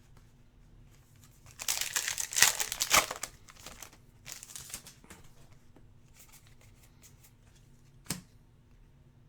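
A trading card pack's wrapper being torn open and crinkled, in a loud rustling burst for about a second and a half, then lighter rustles, with a single sharp click near the end.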